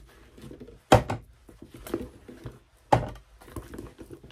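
Rummaging in a bag to take items out: rustling and light handling noise, with two sharp knocks about a second in and just before three seconds as things bump together.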